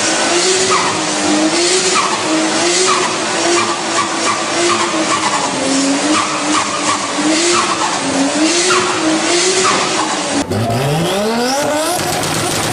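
A car engine held at high revs, its note wavering up and down over a steady hiss of squealing tyres. About ten and a half seconds in, it cuts to a car engine revving up fast, its pitch climbing steeply.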